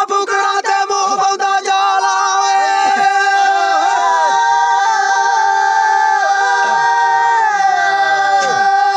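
Young men singing a Dogri folk song unaccompanied, in a high voice, holding long notes that slide down at the ends of phrases.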